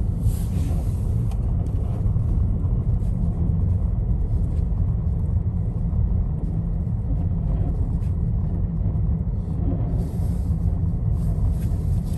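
Car driving: a steady low rumble of road and engine noise, with a brief rise of hiss about ten seconds in.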